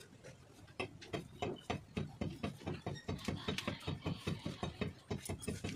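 Small knife slicing through a vegetable held in the hand, with quick crisp cuts, about five a second.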